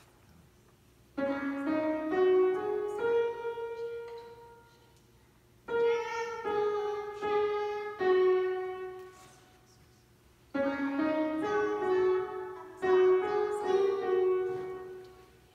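A young child playing a simple melody on a grand piano in three short phrases of a few notes each, with brief pauses between the phrases.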